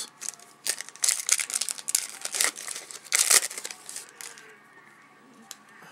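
Trading-card pack wrapper being torn open and crinkled: a run of ripping and rustling for about four seconds, loudest around three seconds in, then quieter handling.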